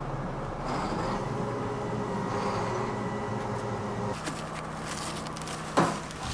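An engine running steadily, its tone shifting about four seconds in, with a brief louder sound near the end.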